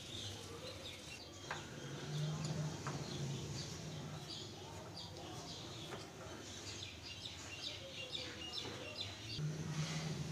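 Small birds chirping repeatedly in the background, with a few light clicks of a plastic spoon against a glass bowl.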